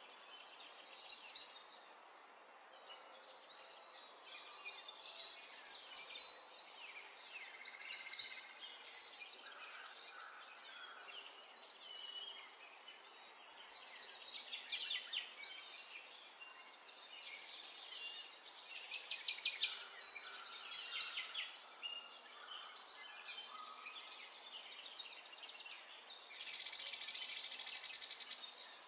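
Birds chirping and singing in quick, high trills and calls, coming and going throughout over a faint steady hiss.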